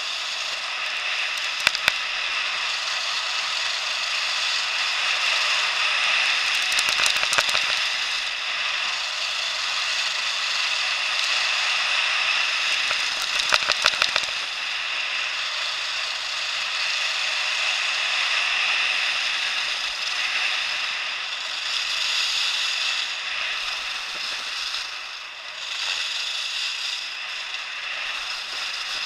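Steady rushing hiss of skiing fast down a groomed piste: skis running over hard-packed snow, with wind on a helmet-mounted camera. Short bursts of rattling clicks come three times, about two, seven and fourteen seconds in.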